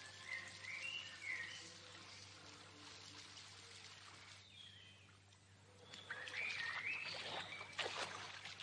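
A small bird singing in two short phrases of stepping chirps, over water splashing and trickling that grows louder near the end.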